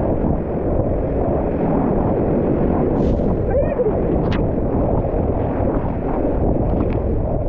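Whitewater rapids rushing and splashing around a kayak, with the paddle slapping the water, heard as a steady loud rush with wind buffeting the camera microphone. A couple of sharper splashes stand out about halfway through.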